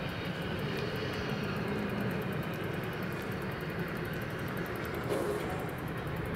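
Steady broad rumble at a railway level crossing while the barrier arms lift, with a short louder noise about five seconds in.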